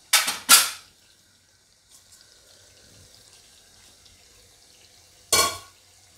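Stainless-steel pot lid being lifted off and handled: two short noisy scrapes about half a second apart at the start, then quiet, and one more a little over five seconds in.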